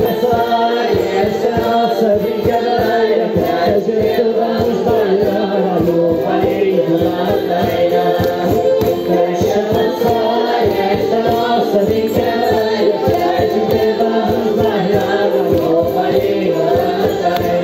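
Madeiran folk music: several voices singing together over instruments with a steady, regular beat.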